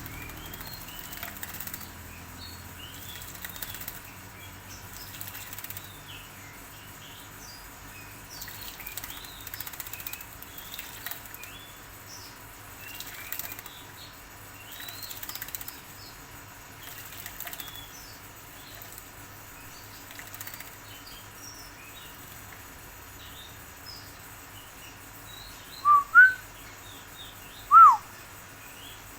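Small songbird bathing, fluttering its wings with soft chirps throughout. Three loud, short whistled notes come near the end.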